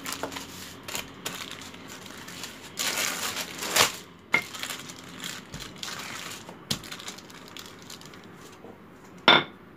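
Baking paper crinkling and rustling as a wooden rolling pin rolls butter flat between two sheets, with a few sharp knocks of the pin, the loudest near the end.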